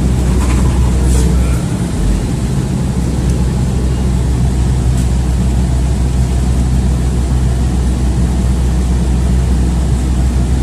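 City bus running along the road: a steady low engine drone and road noise heard from inside the passenger cabin.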